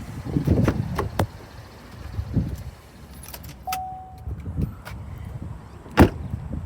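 Handling noises around a car: scattered clicks and knocks, a brief single beep near the middle, and one sharp click about six seconds in.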